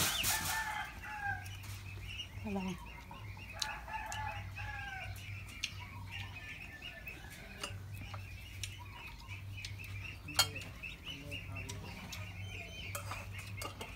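Short, falling animal calls repeated in clusters, strongest in the first five seconds, over a steady high pulsing chirr, with a single sharp clink about ten seconds in.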